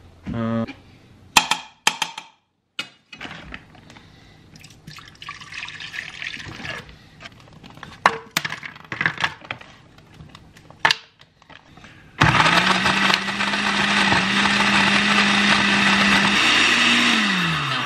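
Countertop blender blending frozen fruit and milk into a smoothie. The motor starts suddenly about two-thirds of the way through, runs steadily with a constant hum, then winds down in pitch as it is switched off near the end. Before it come scattered knocks and clatter as the jar is handled.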